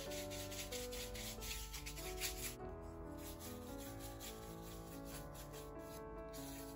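A paintbrush scrubbing acrylic paint mixed with white glue onto a flat cutout in quick back-and-forth strokes, busiest in the first couple of seconds, over soft background music.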